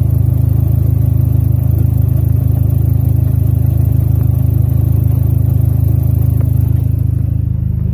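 Dodge SRT-4's turbocharged 2.4-litre four-cylinder idling steadily, its exhaust heard from right underneath the car, a deep even drone that eases slightly near the end.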